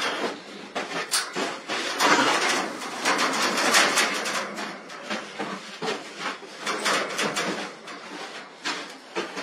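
Wire-mesh enclosure panels rattling and knocking as a tiger presses and rubs against them, with a rough rushing noise. It is loudest from about two to four and a half seconds in.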